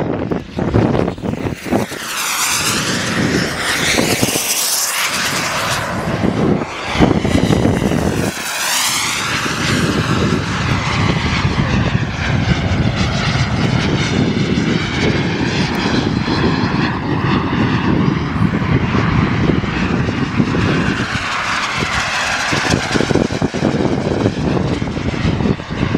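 Small gas-turbine engines of radio-controlled model jets in flight: a loud, steady rush with a high whine. The sound swells and sweeps as jets pass close, about two to five seconds in and again around eight seconds.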